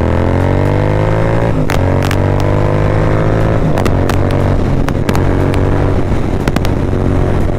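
Royal Enfield Continental GT 650's parallel-twin engine through a Moto Torque aftermarket exhaust, under downshifts on the move. The revs climb for the first second and a half, step at about 1.7 s and again near 4 s, and then hold steady. The exhaust note is loud and sharp, with a few sharp cracks along the way.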